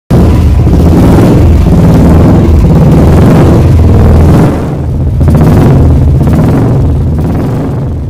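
Royal Enfield single-cylinder motorcycle engine revving repeatedly through an aftermarket silencer, loud. The revs drop briefly about four and a half seconds in, pick up again, then fade toward the end.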